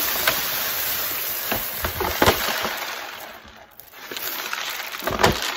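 Dry rice pouring from a large bag into a clear plastic storage container: a steady hiss of grains with small clicks against the plastic. The flow thins out about three seconds in, picks up again, and a low knock comes near the end.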